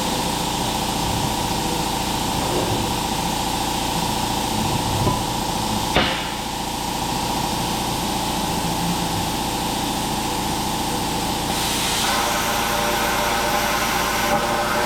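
Plasma cutter cutting a hole in steel tube: a steady hiss and buzz, with a sharp click about six seconds in and a brighter hiss from about twelve seconds.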